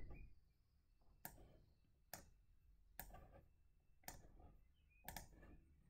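Five faint, short computer clicks about a second apart, from a mouse and keyboard being used, over near silence.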